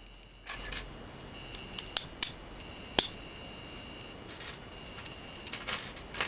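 Small plastic LEGO pieces clicking and clattering as they are handled and pressed together: a handful of sharp clicks, the loudest around two and three seconds in.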